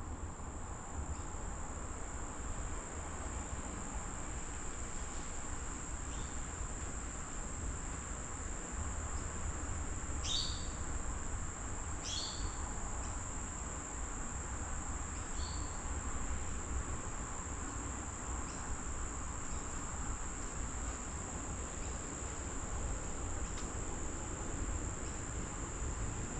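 Steady, high-pitched drone of insects in the trees, with a few short bird calls about ten, twelve and fifteen seconds in, over a low rumble.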